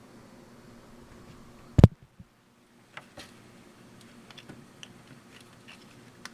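Small clicks and ticks of a plastic electrical connector and wiring harness being handled and plugged together, with one sharp knock about two seconds in, over a faint steady hum.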